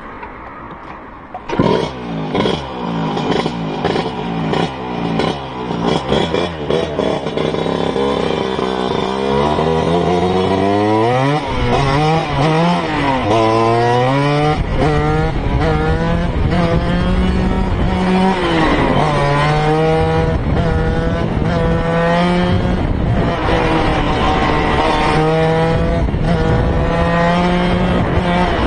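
Tuned two-stroke Vespa smallframe scooter racing engine revving hard, blipped up and down over and over. It starts about a second and a half in.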